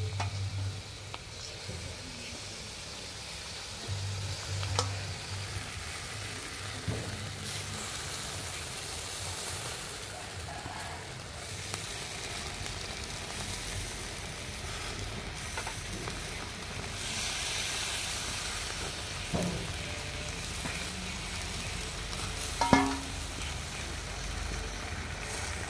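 Chili-basted pork sizzling on a wire grill over charcoal: a steady hiss with a few scattered clicks, the sharpest one near the end.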